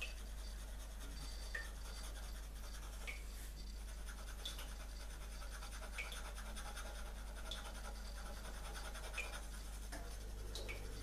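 Graphite pencil scratching on smooth drawing paper as hatching strokes are laid into the shading. A short sharp mark stands out about every second and a half over a steady low hum.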